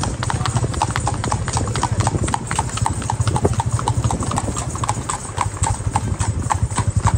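Horses' hooves clip-clopping, an uneven stream of sharp clicks several times a second from more than one horse, over a steady low rumble.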